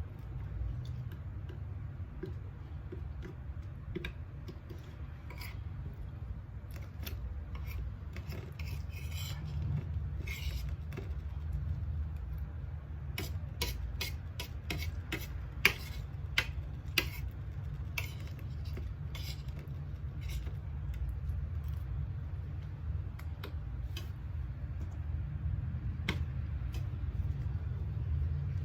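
Sounds of a meal being eaten: scattered clicks and clinks of utensils against a plate, densest and sharpest about halfway through, over a steady low hum.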